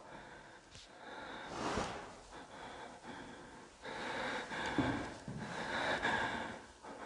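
A person breathing close to the microphone, several slow, noisy breaths in and out.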